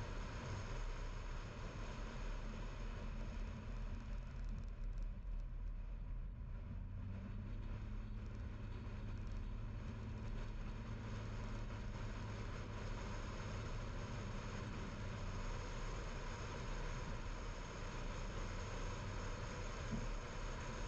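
Car driving along with a steady drone of engine and tyre noise. The higher hiss eases for a couple of seconds about five seconds in.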